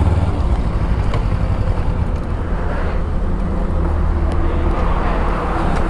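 Motorcycle engine running steadily on the move, with a low rumble and road and wind noise.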